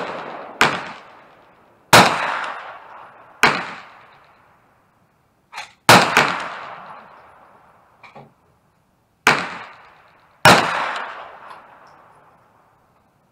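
About six single shots from a 9mm carbine fired at an irregular slow pace, each sharp crack trailing off in a ringing echo, with a couple of faint clinks between them.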